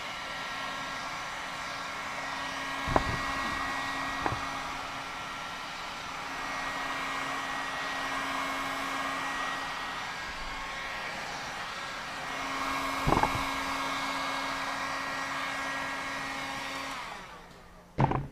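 Handheld electric heat gun blowing steadily with a motor hum while it heats the shoe polish on a leather boot to melt it into the leather; it is switched off shortly before the end. A few light knocks come through it.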